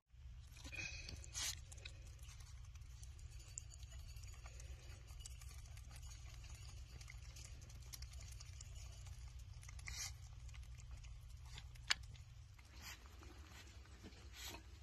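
Groundhog with no teeth gumming finely chopped salad from a bowl: faint soft munching with scattered small clicks and rustles, and a single sharper click about twelve seconds in, over a steady low hum.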